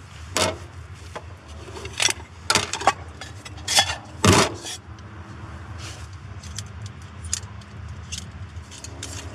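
Camping cook kit being unpacked and handled on a plastic tray: a run of sharp clinks and clatters of small metal items, about six loud ones in the first half, then lighter scattered clicks.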